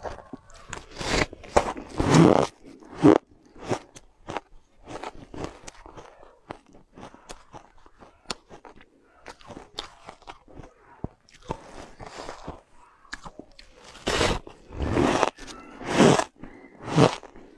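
Crunchy ice being bitten and chewed by mouth, in irregular crisp crackles, with louder bursts of crunching near the start and again near the end.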